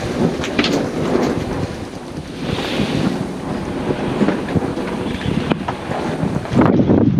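Strong wind buffeting the microphone on a sailboat at sea, with waves and water rushing past the hull, a few short knocks, and a louder gust near the end.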